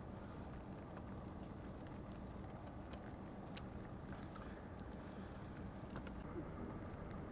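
Faint, steady low rumble of outdoor city background noise at night, with a few faint light ticks scattered through it.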